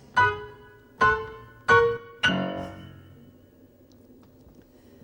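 Piano playing four struck chords about two-thirds of a second apart, each left to ring and die away, closing the song; the last one fades out over the following couple of seconds.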